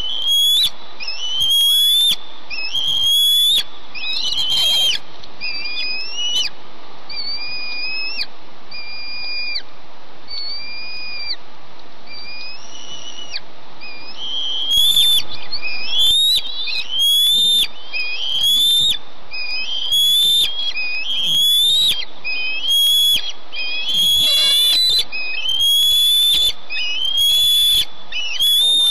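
Bald eaglets begging for food: a long series of high whistled notes, each sliding up and then held, about one a second. The calls are softer through the middle and louder again over the second half.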